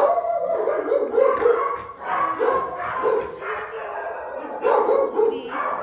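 A dog barking repeatedly in short runs of quick barks.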